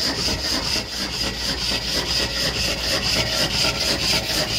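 Homemade wood-fired alpha Stirling engine running steadily, with a rhythmic rasping squeak at every stroke, several times a second. The owner thinks the squeak is air passing one of the piston seals.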